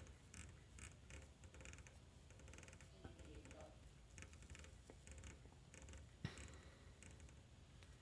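Near silence with faint clicks and scrapes of fingers turning a detented rotary encoder knob on a Lexicon MPX550 effects unit, and one sharper click about six seconds in.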